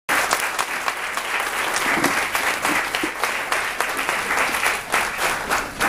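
Audience applauding, many hands clapping without a break.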